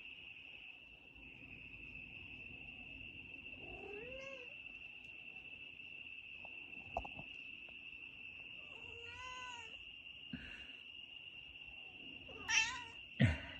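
Tabby cat meowing three times, the last meow near the end the loudest, over a steady high chirring of crickets. A sharp tap comes just before the end.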